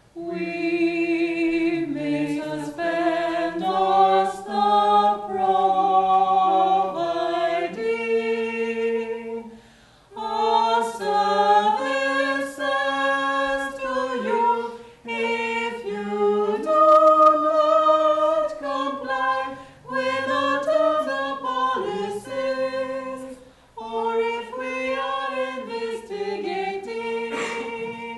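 A vocal trio, one man and two women, singing a cappella in harmony, in sung phrases with a short pause about ten seconds in.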